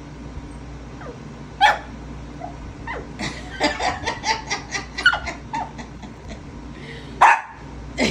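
Shih Tzu barking and yipping: a sharp bark about one and a half seconds in, a quick run of short sharp sounds in the middle, and another loud bark near the end.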